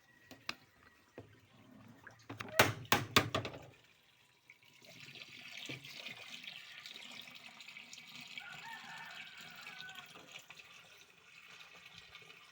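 A few clattering knocks, then water running steadily from about four seconds in.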